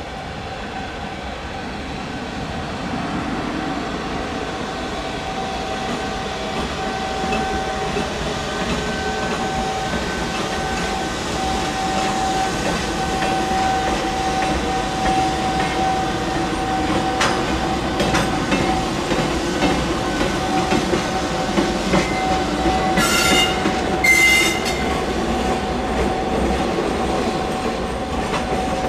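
EF210 electric freight locomotive passing slowly with a DE10 diesel locomotive in tow: a steady whine over rumbling wheels that click over rail joints, growing louder as it comes closer. Two brief shrill squeals sound close together near the end.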